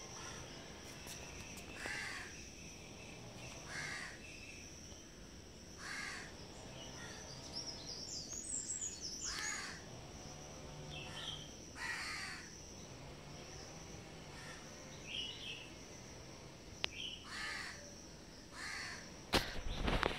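Crow cawing over and over, one call about every two seconds, over a steady high insect trill. A few sharp knocks near the end.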